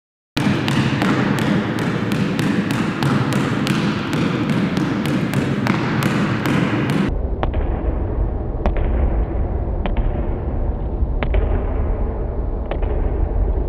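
A basketball being dribbled on a gym floor, sharp bounces about three a second over a loud steady hiss. About halfway through the hiss gives way to a deep rumble and the bounces come slower and fainter, about two a second.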